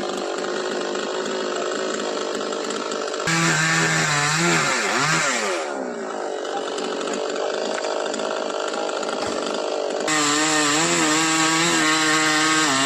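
Chainsaw engine running steadily, with two louder spells of a few seconds each in which its pitch wavers up and down, the first a few seconds in and the second near the end.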